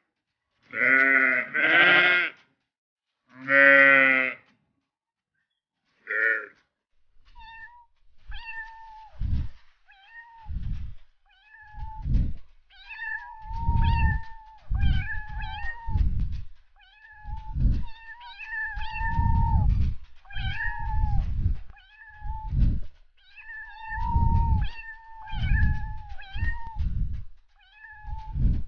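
Cats meowing. A few loud, drawn-out meows come in the first four seconds. From about seven seconds on there is a long string of shorter, higher mews with low thumps underneath.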